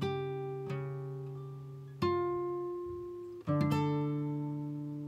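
Background music: an acoustic guitar playing slow plucked chords, each struck and left to ring and fade, with new chords about two seconds in and again after three and a half seconds.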